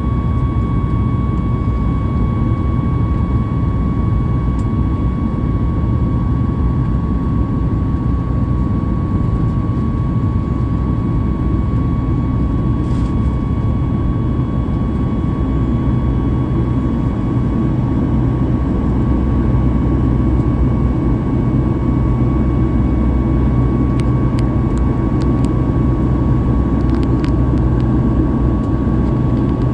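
Steady jet-engine noise heard inside the cabin of a Boeing 737 MAX 8, from its two CFM LEAP-1B turbofans running at high power: a deep rumble with a steady whine on top. It grows slightly louder about two-thirds of the way through.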